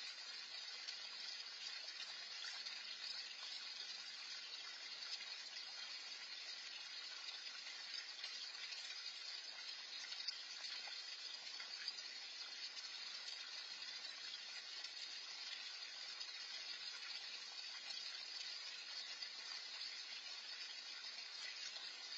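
Small garden pond fountain splashing steadily into the water: a faint, even wash of running water.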